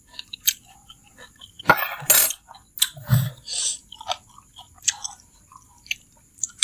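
Close-up eating sounds of mie ayam, Indonesian chicken noodles: noodles slurped and chewed, with wet mouth smacks and clicks, and louder slurps about two and three seconds in.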